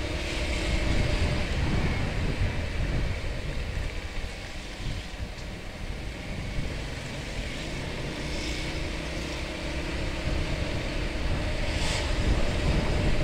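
Honda BeAT automatic scooter on the move: low wind rumble on the microphone over the scooter's small single-cylinder engine running steadily.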